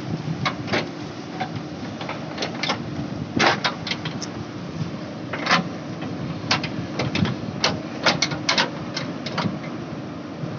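JCB backhoe loader's diesel engine running steadily, with many irregular sharp knocks and clanks over it.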